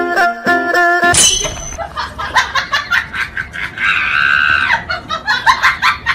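A short tinkling tune that cuts off about a second in, followed by rapid high-pitched cackling laughter with a long shrill shriek in the middle.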